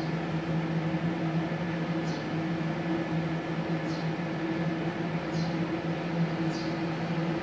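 A TIG inverter welding machine and its cooling unit running at idle, with no arc struck: a steady fan hum with a low drone.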